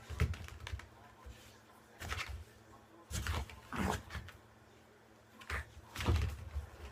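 A Mame-shiba dog playing with a ball, making a few short noises in separate bursts, with light knocks in between.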